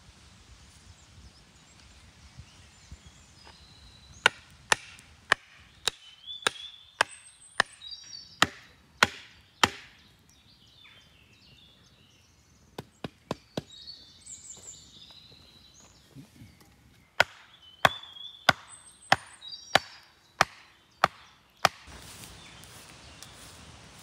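Hatchet blows on wood, about two sharp strikes a second, in a run of about ten, then a few light taps, then another run of about nine. Birds chirp in the background.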